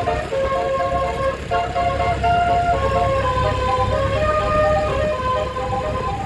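A tour bus's telolet musical air horn playing a tune in held notes that step from pitch to pitch, over the steady low rumble of the bus engine.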